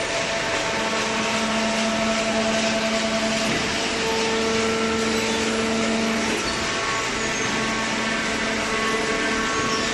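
A vertical hydraulic cardboard baler's motor and hydraulic pump running: a steady mechanical hum with a few held tones over a noisy whir.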